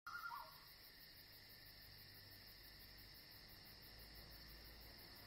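Faint night ambience of crickets chirping steadily, nearly silent, with a brief faint tone in the first half second.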